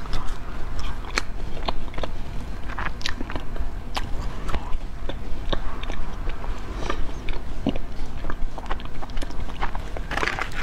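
Close-miked biting and chewing of a chocolate ice cream bar, with many short, crisp clicks and mouth sounds scattered through.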